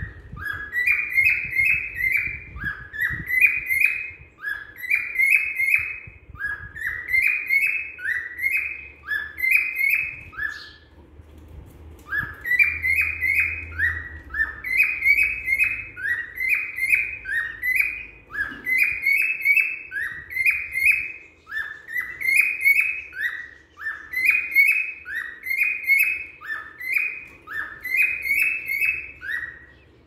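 Grey cockatiel calling: a phrase of quick, high chirps repeated over and over, about one phrase a second, with one short pause near the middle.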